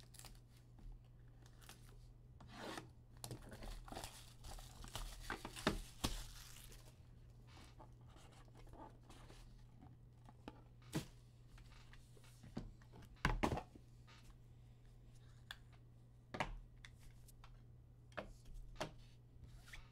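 Trading card pack wrapper being torn open, a crinkly rip that is strongest about four to seven seconds in. Then the cards are handled, with scattered sharp clicks and taps.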